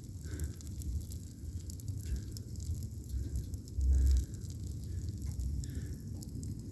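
Faint sizzling and crackling from the freshly blown, oil-soaked 4.3L V6, with scattered ticks, a low wind rumble on the microphone, and a short low thump about four seconds in.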